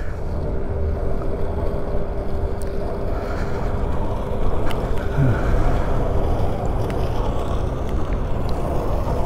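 Riding noise from an ONYX RCR electric moped cruising: a steady rush of wind and road noise, with a faint steady hum that fades out near the end.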